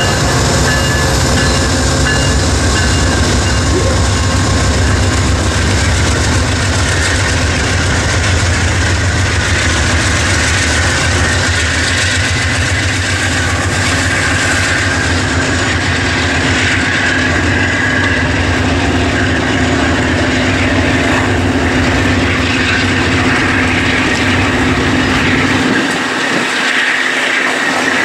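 Amtrak passenger train passing: its GE Genesis diesel locomotives give a steady low rumble, and the double-deck Superliner cars roll by with wheel clatter over the rails. The low rumble drops away near the end.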